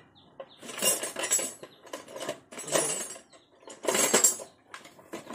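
Metal spanners and hand tools clinking and rattling in about four short bursts, as a 19 mm spanner is fetched.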